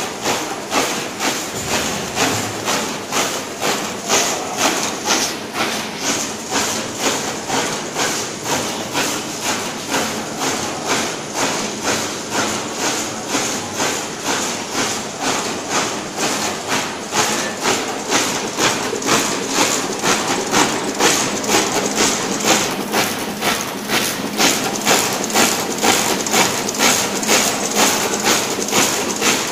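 YH-210C four-colour label printer with die-cut and lamination units running, knocking in an even rhythm about twice a second as it cycles.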